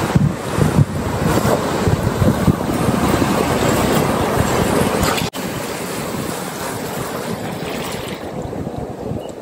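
Wind buffeting the microphone over a wash of moving water, with a sudden brief dropout about five seconds in; the hiss thins near the end.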